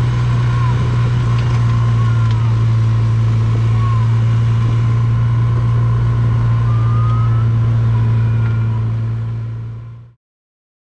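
Side-by-side utility vehicle's engine running steadily as it drives along, a constant low drone heard from inside the open cab. It fades out near the end.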